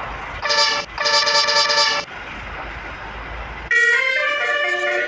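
Tour bus telolet horn (Basuri type) sounding two short chord-like blasts, then, near the end, a quick tune of changing horn notes.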